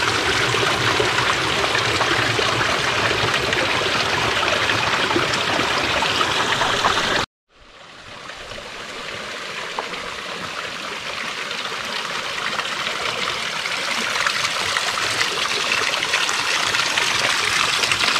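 Spring water running and trickling over mossy rocks and channels, a steady hiss. It cuts out for a moment about seven seconds in, then fades back up over several seconds.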